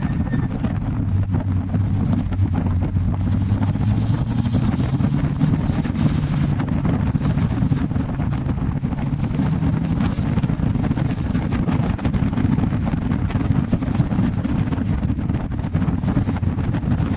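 Toyota Celica GT-Four ST165's turbocharged 2.0-litre four-cylinder engine pulling at speed on a circuit, its note climbing in pitch twice as the car accelerates. Heavy wind buffeting on the outside-mounted camera's microphone covers much of it.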